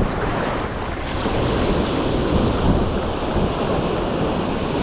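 Ocean surf washing up over the sand at the shoreline, a steady rushing noise, with wind rumbling on the microphone.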